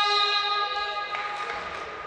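A horn sounds one long steady note, then cuts off about a second in.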